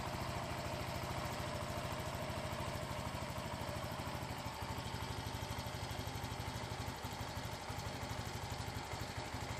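Yamaha Mio 125 scooter's single-cylinder fuel-injected engine idling with an even pulse. It is running normally after its throttle body and combustion chamber were cleaned.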